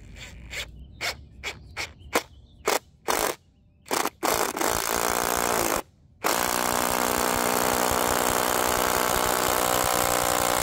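Cordless drill with a foot-long 1/4-inch bit boring a pilot hole through a pressure-treated 4x6 timber. It starts with a string of short trigger spurts, then runs steadily for several seconds after a brief pause about halfway through.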